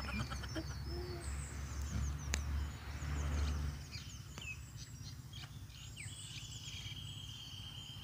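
Small birds chirping and calling repeatedly in the background, with a long steady trill in the last two seconds. A low rumble stops about halfway through, and there is one sharp click a little before that.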